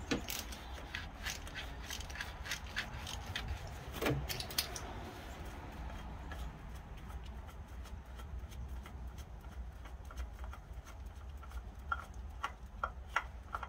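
Sharp metallic clicks and light rattles of a filter wrench and hands working a spin-on oil filter loose on top of the engine, a series in the first few seconds and a few more near the end, over a low steady hum.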